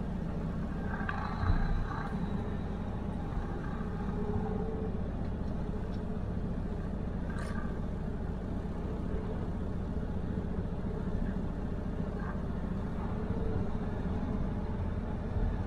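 Truck engine idling steadily, with a brief click about seven and a half seconds in.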